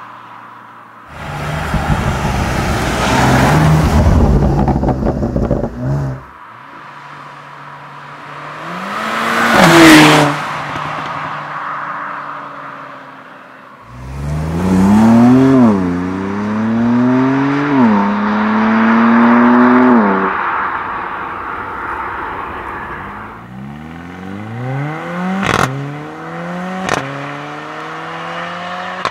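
High-performance sports car engine under hard acceleration, passing by with a swell and fade, then pulling through the gears with the pitch climbing and dropping at each upshift. Two sharp cracks near the end.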